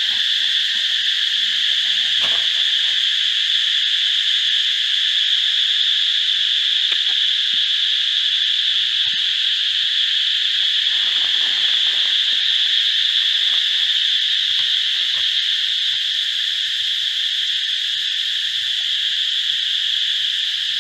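Steady, loud insect chorus: a continuous high buzzing that holds level throughout. A few faint rustles are heard beneath it, one about two seconds in and another around the middle.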